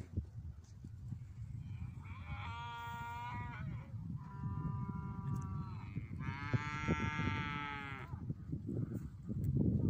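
Cattle mooing: three drawn-out calls, the third the longest, over a steady low rumble.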